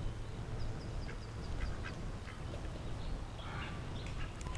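A duck quacking: a few short quacks, the loudest about three and a half seconds in, with faint high chirping in the first half.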